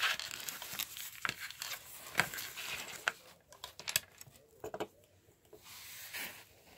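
Lego bricks being handled and pressed together by hand: irregular small plastic clicks and scrapes, with long fingernails tapping on the bricks.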